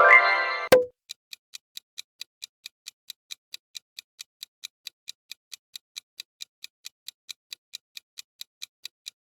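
Clock-ticking sound effect of a quiz countdown timer, even ticks at about four a second. It opens with a short, loud rising sound effect that ends in a sharp hit.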